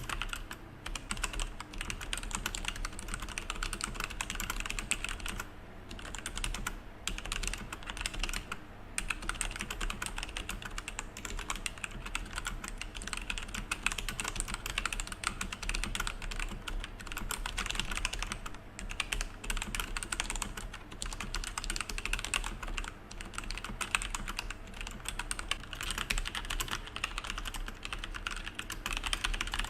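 Continuous typing on a mechanical keyboard with Outemu Brown tactile switches, with only brief lulls. For most of the stretch rubber O-rings are fitted under the keycaps, damping the bottom-out clack; near the end the O-rings are off and the keystrokes are undamped.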